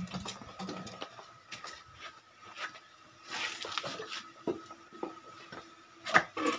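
Scattered light clinks and knocks of metal tools and engine parts being handled, with a louder knock about six seconds in. A faint steady hum runs underneath.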